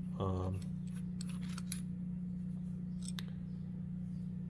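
A few light metallic clicks and scrapes as a copper welding nozzle is twisted and pulled off a brass welding wand, over a steady low hum.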